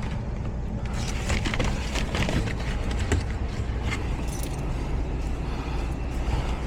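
Heat pump air handler's blower running with a steady low hum and breathing hard against a badly clogged air filter that restricts the airflow, with scattered clicks and rustles from the filter being handled.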